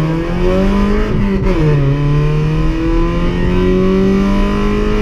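Car engine under hard acceleration, heard from inside the car. It climbs in revs, drops sharply on an upshift about a second and a half in, then pulls up slowly again in the next gear.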